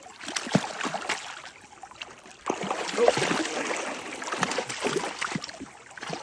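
Water splashing and trickling at the side of a kayak as a hooked, lively trout thrashes at the surface. The splashes are uneven, lighter at first and louder and busier from about halfway through.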